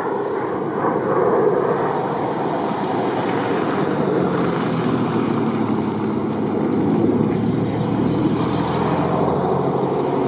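F-35 fighter's single jet engine running on landing approach with its gear down: a loud, steady rush of noise, with a low hum joining in about four seconds in.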